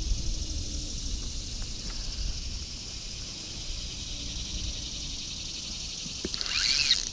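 A steady, high-pitched drone of an insect chorus over a low rumble. Near the end comes a brief sound that quickly rises and falls in pitch.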